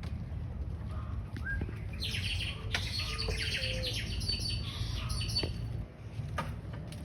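Small birds chirping and twittering, busiest through the middle of the stretch, over a steady low rumble.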